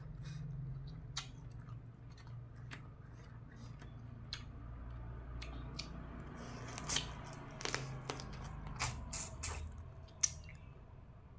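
Close-miked eating of green papaya salad: wet chewing with sharp mouth clicks and lip smacks, coming thickest a few seconds before a new bite goes in.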